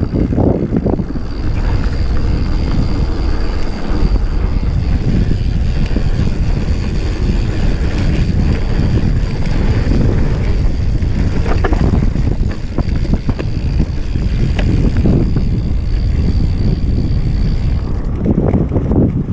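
Wind buffeting the microphone of a mountain bike descending a dirt singletrack, over the steady rumble of tyres on the trail and scattered clicks and rattles from the bike on rough ground.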